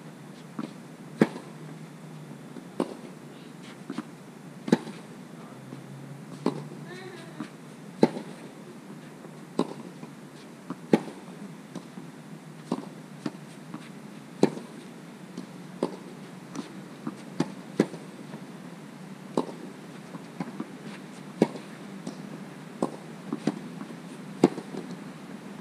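Tennis balls struck back and forth by rackets in a baseline rally: sharp pops about every one and a half to two seconds, the near player's hits loud and the far player's fainter, with softer ball bounces between.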